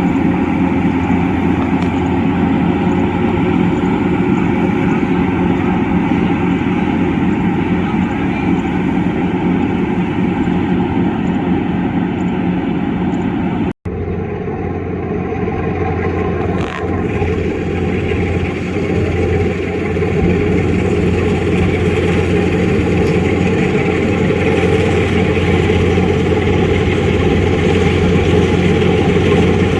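Kubota DC105X rice combine harvester running: a steady diesel engine drone with machinery noise over it. The sound cuts out abruptly for an instant about 14 seconds in, then carries on.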